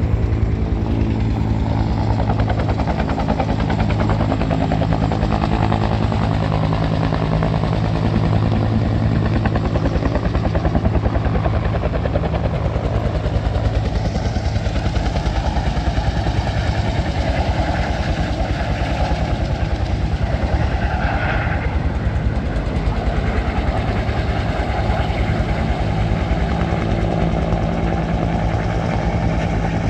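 An engine running steadily at an even speed, with a fast pulsing beat and a rushing noise over it, heard from the moving vehicle that carries the camera.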